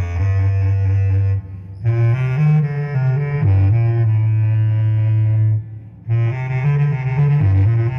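Electronically augmented bass clarinet (SABRE) improvising low held notes that step in pitch. Two phrases break off briefly, about a second and a half in and near six seconds.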